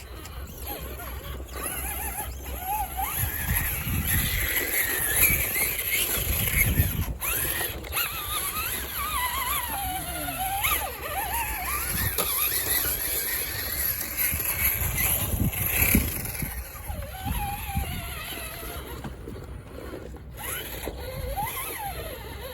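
Electric motor and gear drive of a radio-controlled crawler truck whining, its pitch rising and falling with the throttle as it crawls, over a low rumble.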